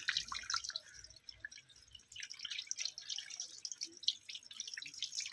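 Water streaming from a garden hose nozzle and splattering on a stone floor, a steady patter of small splashes as a puppy's paws are rinsed under it.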